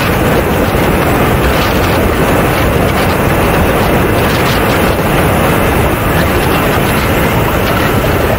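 Steady, loud rush of wind buffeting the microphone of a camera slung under a radio-controlled A-10 model jet in flight, with the model's engine noise buried in it.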